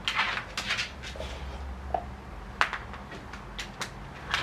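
Dogs moving about on a hard floor: a few short breathy snuffles and light, scattered clicks, over a low steady hum.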